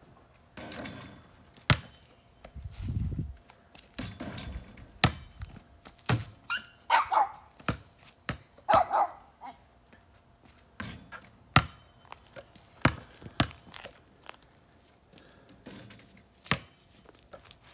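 Basketball bouncing on an asphalt driveway and striking a portable hoop's backboard and rim, in irregular sharp knocks and thunks. Two short pitched calls sound near the middle.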